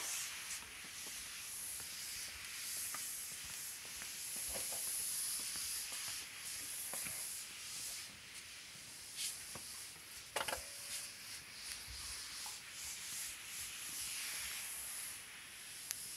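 A cat scrabbling and rubbing against a thin frame on a wooden floor: a steady scratchy rubbing noise with scattered light taps and clicks, the loudest a sharp click about ten seconds in.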